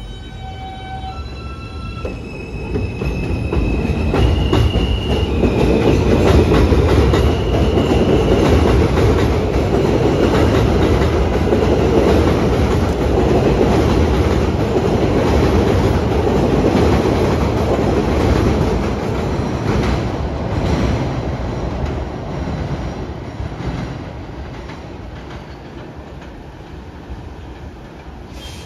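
R160A-1 subway train pulling out and accelerating away on a steel elevated structure: a high electric whine from its propulsion that changes pitch in steps as it gets moving, then the loud rumble and clickety-clack of its wheels on the el as the cars pass, fading in the last several seconds.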